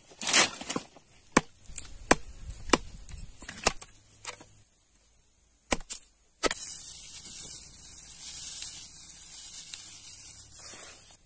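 A large knife chopping sticks on a wooden log: about eight sharp, unevenly spaced chops over the first six seconds or so. Then a steady dry rustle of straw being handled.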